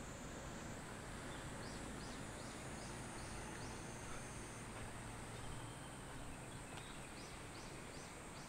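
Faint rural outdoor ambience: a steady high insect drone with two runs of short high chirps, about three a second. About six chirps come from a second and a half in, and about four more near the end.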